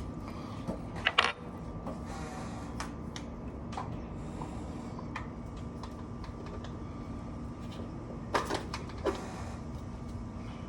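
A few sharp metal clicks and knocks from handling a piston and ring compressor at the engine block, loudest about a second in and again near the end, over a steady hum.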